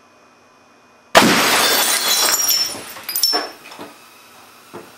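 A 23-inch CRT television's picture tube imploding as a cast lead slug from an air cannon hits it about a second in: a sudden loud crash, then about two seconds of glass shattering and debris falling, with a second burst of crashing before it dies away.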